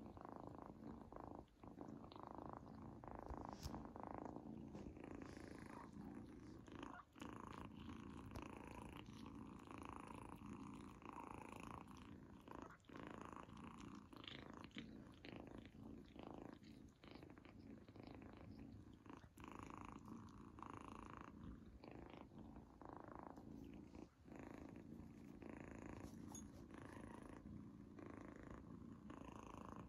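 Kitten purring steadily and quietly close to the microphone, the purr broken by a brief pause now and then, with a few soft clicks over it.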